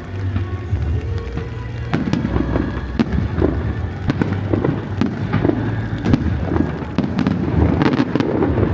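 Fireworks bursting in quick succession: many sharp bangs and crackles starting about two seconds in and thickening toward the end, over a low steady rumble and music.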